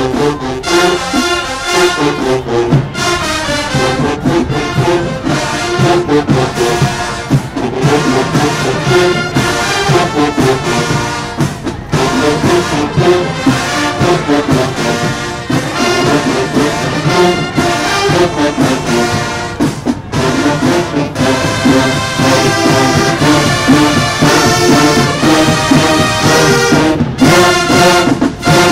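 A marching band playing loudly: the brass section carries the melody over a steady drumline beat.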